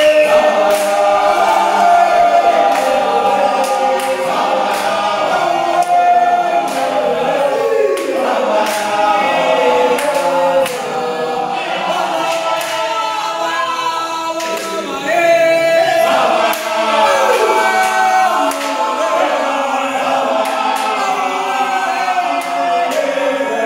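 A group of men singing together in chorus, unaccompanied, with a few sharp clicks cutting through.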